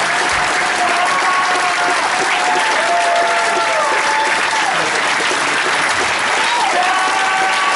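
Club audience applauding steadily at the end of a song, with long held cheers from the crowd rising and falling over the clapping.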